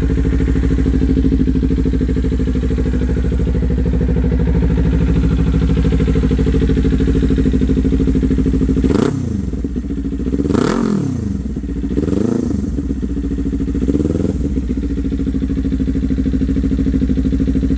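Kawasaki Ninja 400's parallel-twin engine idling steadily through an aftermarket exhaust, then blipped four times in quick succession about halfway through, each rev rising and falling back to idle.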